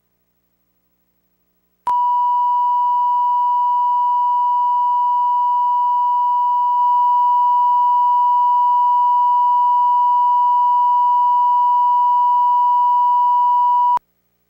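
Broadcast line-up test tone, a steady 1 kHz reference tone of the kind sent with colour bars for setting audio levels. It starts abruptly about two seconds in, holds one unbroken pitch, and cuts off abruptly near the end.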